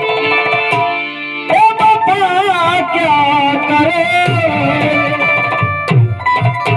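Instrumental introduction to a Hindi devotional song: a lead melody line with wavering vibrato over held tones, with a few percussion beats.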